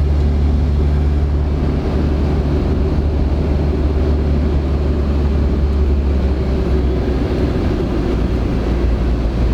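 Steady engine drone and road noise heard inside a car's cabin while it drives at an even speed.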